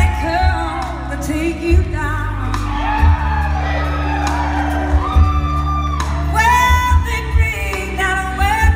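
A live band playing on stage: electric guitars, keyboard and drums, with a woman singing over them.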